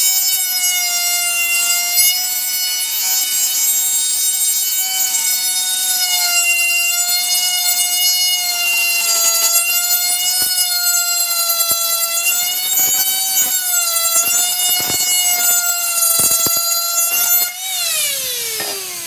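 Die grinder with a burr grinding a lip off the flange of a steel oil pan: a steady high whine that wavers a little in pitch under load. Near the end the tool is lifted off and the whine falls away in pitch as it spins down.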